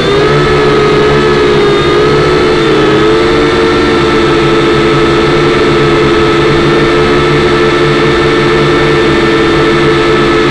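Kyosho Quattrox Eye toy quadcopter's four electric motors and propellers whining steadily in flight, loud and close through its own onboard camera. The pitch dips and rises briefly about two and a half seconds in.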